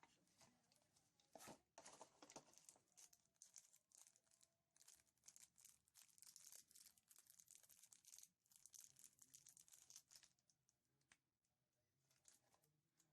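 Faint crinkling and scratching handling noise, irregular and busy, dying away about ten seconds in.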